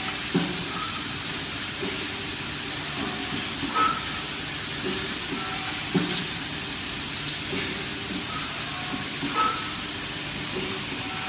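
Automatic friction welding machine running in production: a steady hissing machine noise with a sharp clunk every few seconds as it cycles, four in all.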